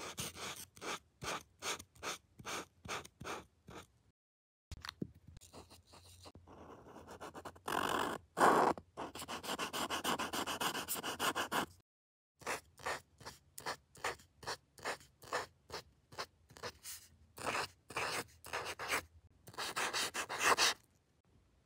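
Posca paint marker tip scratching across paper in short repeated strokes, a few a second, with a longer stretch of continuous scraping around the middle as a solid area is coloured in.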